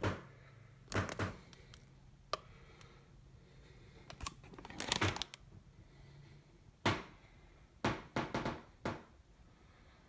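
Grocery packaging being handled: a scattering of short plastic rustles and light knocks against a counter, about eight separate bursts.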